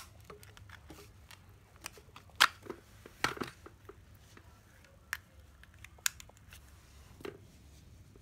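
Scattered sharp clicks and knocks of a 12 V cordless drill being handled, its plastic body and parts clacking, with no motor running.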